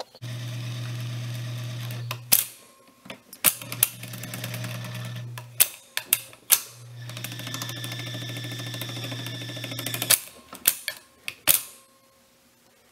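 Webster-Chicago 346 record changer's motor running with a steady hum in three stretches, broken by sharp clicks as the speed selector shifts the idler wheels through the three speeds. The hum stops about ten seconds in, followed by several more clicks.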